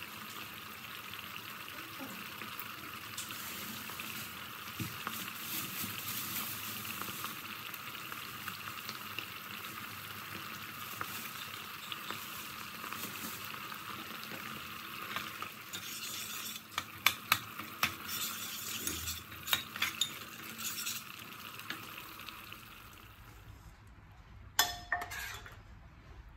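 Thick sauce bubbling and sizzling in a pot, a steady crackling hiss. About two-thirds of the way in, a spoon clinks against the pot in a quick run of sharp taps. The sizzling stops near the end.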